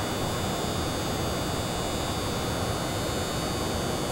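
Steady background hiss and hum of the arena, with no distinct events.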